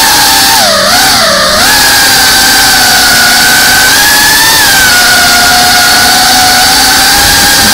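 FPV racing quadcopter's brushless motors and propellers whining loudly at a steady pitch, heard from the drone itself. About a second in the pitch dips and recovers twice as the throttle changes.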